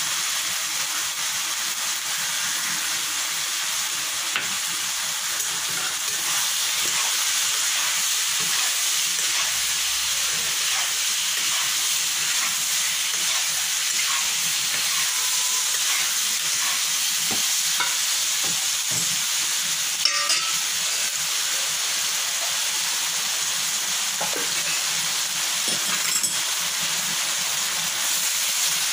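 Dal vadas and potato pieces sizzling in spiced oil in a non-stick kadai, with a spatula stirring and scraping through them. A couple of sharp knocks of the spatula against the pan stand out, about two-thirds of the way through and again near the end.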